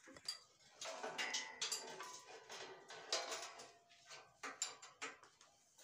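Steel pieces knocking and clinking against a welded steel band saw mill frame as a guard is offered up to it: a series of irregular clanks, several leaving a short metallic ring.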